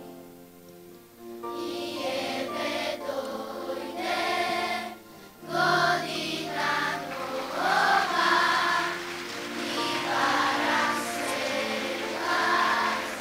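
A children's choir singing a song together, over instrumental accompaniment. Held instrument notes come first; the voices come in after about a second and a half.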